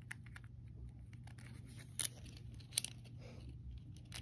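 A few light clicks and faint rustling of small plastic items being handled, over a steady low hum.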